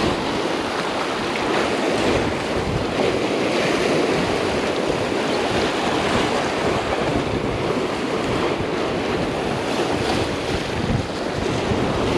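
Surf breaking and washing over the rocks of a jetty: a steady churn of water.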